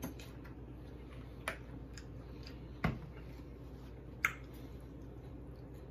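Eating sounds while chewing and handling a taco: four sharp smacks and clicks about a second and a half apart, the third the loudest, over a low steady hum.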